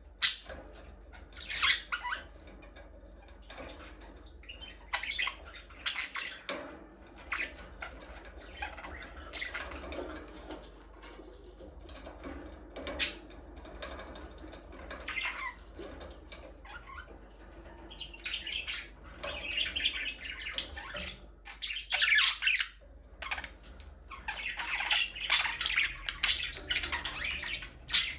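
Several budgerigars chirping and squawking: short sharp calls scattered throughout, with a few loud squawks and denser chattering in the last third.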